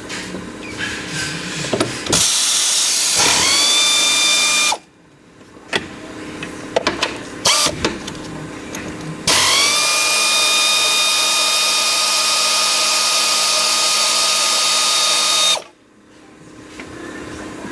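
A power wrench spinning up with a rising whine, then running steadily and stopping abruptly, twice: a short run of about two and a half seconds and a longer one of about six seconds, as it works the 15 mm upper strut mount nuts off. Light clicks and knocks of tools come between the two runs.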